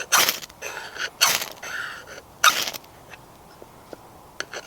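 Ferrocerium fire-steel rod scraped hard with a striker to throw sparks onto a fire lighter: three sharp scrapes about a second apart, then a short pause with a few light clicks near the end.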